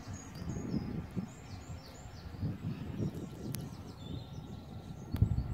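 Small birds chirping and singing, with an uneven low rumble underneath and a sharp knock about five seconds in.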